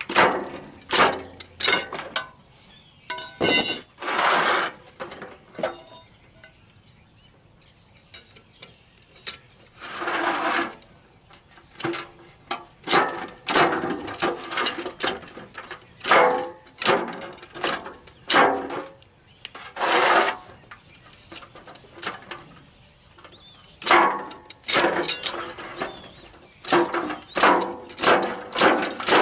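A long steel pry bar clinking, knocking and scraping against a semi truck's wheel hub as the old leaking hub seal is levered out of its bore: irregular metal knocks, with a quieter stretch a few seconds in.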